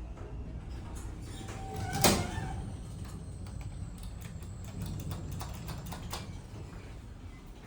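Passenger elevator arriving at a floor: the car's low rumble, a sharp clunk with a brief tone about two seconds in, then a run of light clicks as the doors slide.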